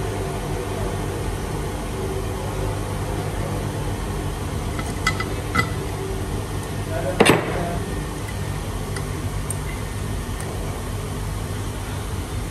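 A steady low hum of workshop machinery runs throughout. Over it come a few light metallic clinks about five seconds in and a louder clank just past seven seconds, as a steel rod is worked against an aluminium cylinder head.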